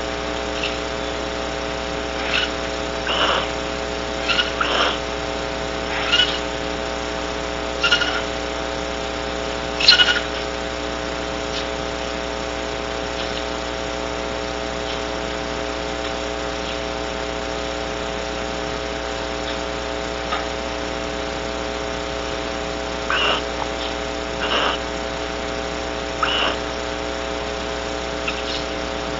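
Steady electrical hum from a nest-box camera's microphone, overlaid with short, sharp animal calls every second or so, bunched in the first ten seconds and again after about twenty-three seconds.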